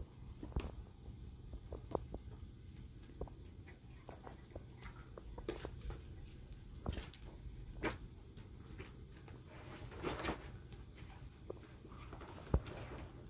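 Light handling noise: scattered small clicks and brief rustles as spices are taken from a small plastic drawer rack, with one sharper click near the end, over a low steady background rumble.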